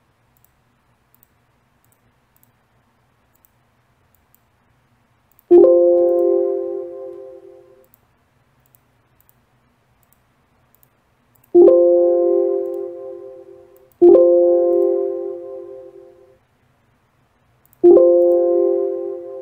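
Computer alert chime sounding four times, each a short bell-like chord that fades over about two seconds: the error sound of a 'cable cannot be connected to that port' message in Cisco Packet Tracer. Faint mouse clicks between the chimes.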